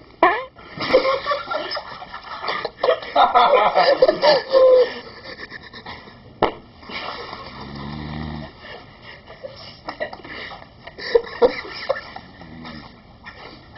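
Several people's stifled, wheezing laughter for the first few seconds. About eight seconds in comes a short, low buzzing sound, with more quiet giggling near the end.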